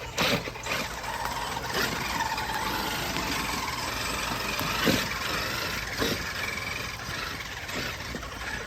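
Radio-controlled truck running over wet, muddy ground: a steady motor and tyre noise with a faint whine, and a few sharp knocks, the loudest about five seconds in.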